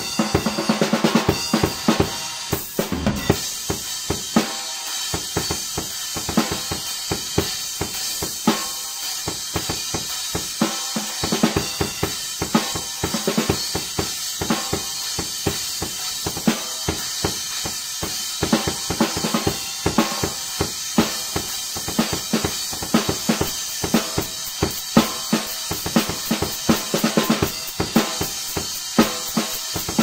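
Drum kit played in a continuous steady beat on snare, bass drum and hi-hat, its cymbals being perforated low-volume cymbals.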